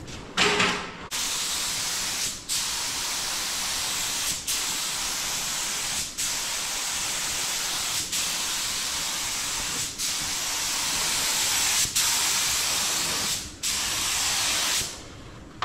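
Air-fed gravity-cup paint spray gun hissing as it sprays paint in passes over a truck hood, with a short dip in the hiss about every two seconds. It opens with a short louder burst.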